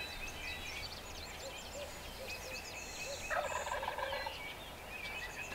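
A wild turkey gobbling once, about three seconds in, with other birds chirping in the background.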